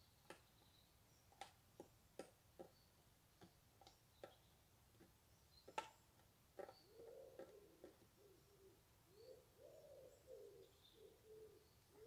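Faint woodland ambience: a pigeon cooing from about six and a half seconds in, a repeated phrase of soft low notes. Before it come a few scattered sharp clicks and a couple of thin high calls from a small bird.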